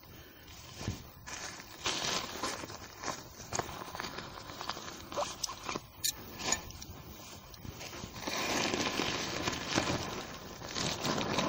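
Tent gear being handled: short clicks and scrapes as tent pegs are taken from the gear bag, then a denser rustling of the polyester tent fly as the vestibule is pulled out near the end.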